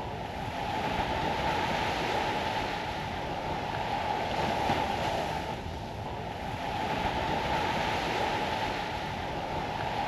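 Ocean surf washing onto a beach, a steady rush of noise that swells and fades twice.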